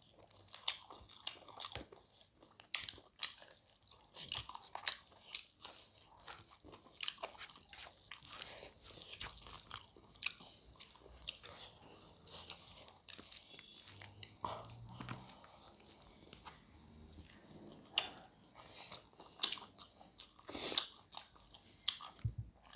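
Close-miked chewing and crunching of cooked chicken gizzard and liver: a dense, irregular run of small wet mouth clicks and crunches.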